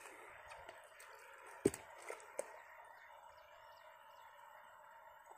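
Quiet outdoor ambience: a steady faint background hiss with a few short, thin bird chirps. Three light clicks come about two seconds in, the first the loudest, as fingers work a fishing hook.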